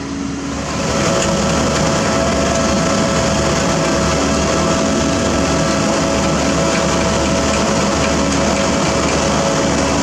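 Heavy diesel paving machinery, an asphalt paver working with a dump truck tipping into it, running steadily. The noise grows louder about a second in, then holds level with a few steady tones over it.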